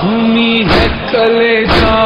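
Male voices chanting an Urdu noha in long held notes, over a deep beat that comes about once a second.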